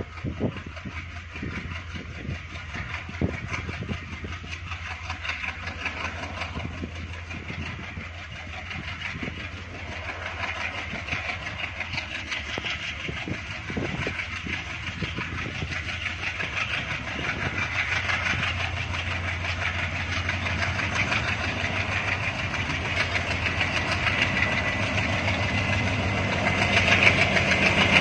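ALCO diesel locomotive's engine running with a steady low drone as the locomotive approaches at the head of a passenger train, growing steadily louder.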